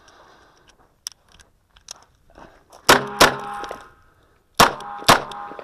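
Soft shuffling movement, then a Smith & Wesson Model 640 snub-nose revolver fires .38 Special rounds: two quick shots about three seconds in, and another pair about a second and a half later, each pair followed by a ringing tail.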